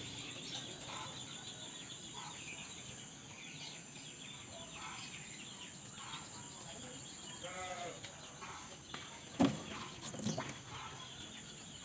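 Rural outdoor ambience: a steady high insect drone with scattered animal calls, one longer call with a clear pitch about seven and a half seconds in. A sharp knock a little after nine seconds, the loudest sound, with a couple of lighter knocks after it, as the clear plastic cup with its tissue is handled on the concrete.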